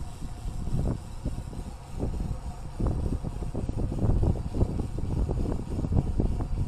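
Wind buffeting a bicycle-mounted camera's microphone while riding: an uneven low rumble of gusts that gets louder about two seconds in.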